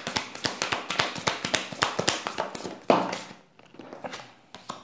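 A deck of oracle cards being shuffled by hand: a quick, irregular run of soft card taps and flicks. About three seconds in, a card is drawn and laid on the table, and the sound then falls much quieter.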